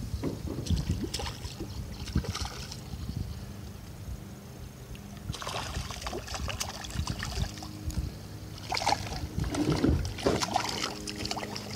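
A hooked speckled trout splashing at the surface beside a kayak, in two spells: one about halfway through and a stronger one near the end.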